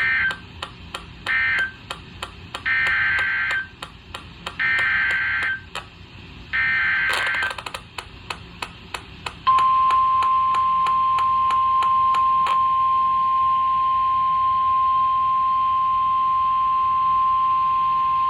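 Emergency Alert System weather alert audio. The first two short warbling digital data bursts are end-of-message codes. Then come three longer bursts of about a second each, the SAME header for the next warning repeated three times. About nine and a half seconds in, the steady single-pitch 1050 Hz weather alert tone starts and holds for about nine seconds. Faint crackling clicks run underneath throughout.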